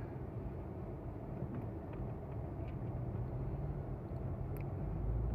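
Car driving along: a steady low rumble of engine and road noise, a little louder near the end.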